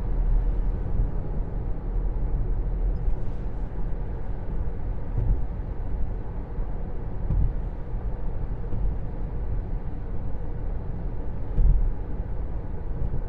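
Steady low rumble of tyre and road noise inside a moving car's cabin at cruising speed, with one brief louder bump about three-quarters of the way through.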